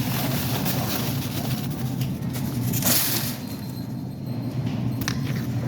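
Steady low mechanical rumble, with a brief hissing burst about three seconds in and a few sharp clicks near the end.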